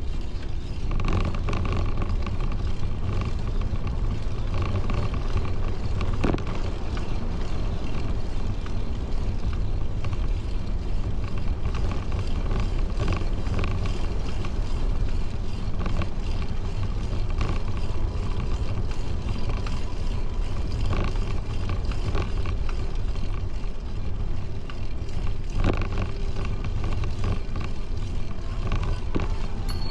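Steady rush of wind and tyre noise while riding a bicycle on a paved path, with a few light clicks.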